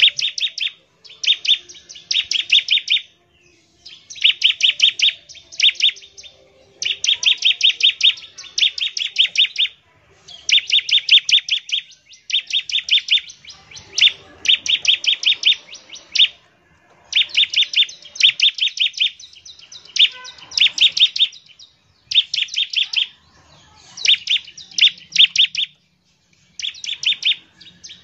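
Bar-winged prinia (ciblek) singing vigorously in rapid bursts of sharp, fast-repeated high notes, each burst lasting about a second with short pauses between.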